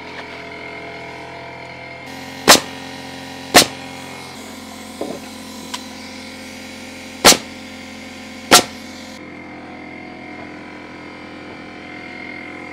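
Pneumatic framing nailer firing four single shots into lumber: two about a second apart, then two more a few seconds later, also about a second apart. A steady hum runs underneath.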